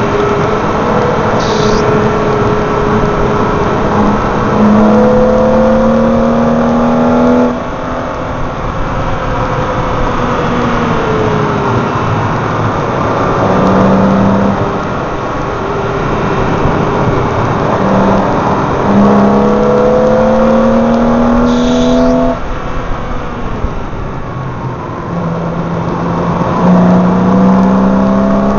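BMW M3 engine pulling hard around a race track, its pitch climbing through long pulls and dropping sharply as the throttle is lifted about seven seconds in and again about twenty-two seconds in. Heavy wind and road roar from a camera taped to the number plate lies under it.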